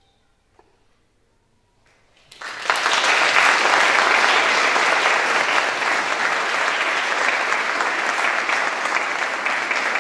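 An audience applauding: after a hush of about two seconds, clapping breaks out and carries on steadily.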